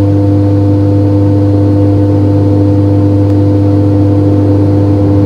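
A loud, steady hum: one low tone with several higher steady tones above it, unchanging throughout, with no owl calls standing out.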